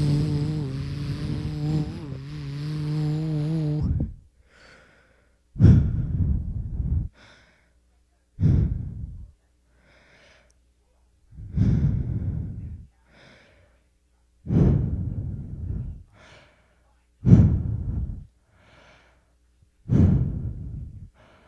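A person's voice holds a hummed note for about four seconds, then breathes slowly and heavily: a faint inhale followed by a loud, sighing exhale, six times, about every three seconds, like someone asleep.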